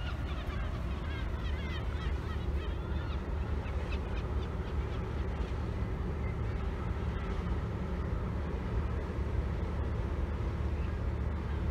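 Tugboat's diesel engine running steadily as a low rumble while it moves a barge along the river, with birds calling in the first few seconds.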